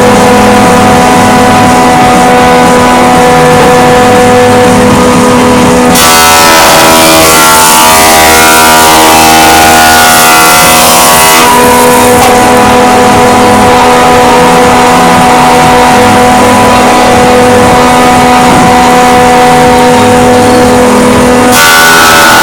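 Woodworking power tool's motor running steadily with a constant whine. From about six to eleven seconds in, and again near the end, it sounds harsher and its pitch wavers as it cuts through oak under load.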